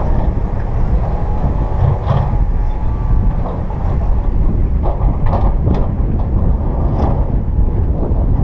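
Cat 320 excavator's diesel engine working under load with a steady low rumble, broken by irregular clanks and knocks of rock against the steel bucket, and a brief whine about a second in.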